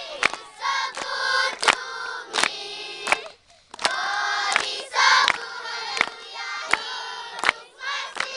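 A large group of schoolchildren singing together, clapping along on a steady beat about once every three-quarters of a second. The singing breaks off briefly about three and a half seconds in.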